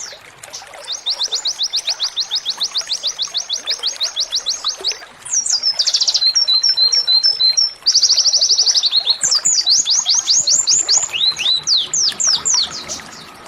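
Canary singing a string of fast trills. It begins with a long run of rapid repeated notes, then a brief buzzy burst with a few paired chirps, another fast trill, and a run of quick downward-sweeping notes near the end.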